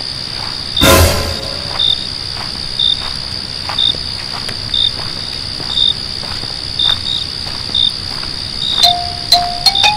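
Crickets chirping: a short high chirp roughly once a second over a steady high ringing. A loud thud with a short ringing tail comes about a second in.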